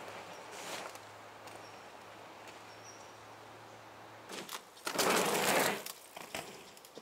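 Quiet forest ambience with a few faint, high bird chirps; about five seconds in, a loud, brief rush of noise lasting under a second.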